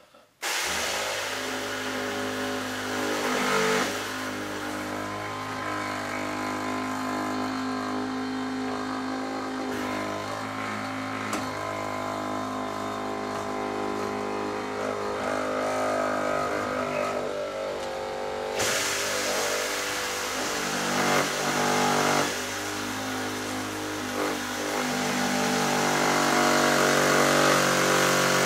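FloJet 2100-987 electric diaphragm pump on a 15-gallon weed sprayer switching on about half a second in and running steadily with a rough mechanical hum. It grows louder and brighter over the last few seconds.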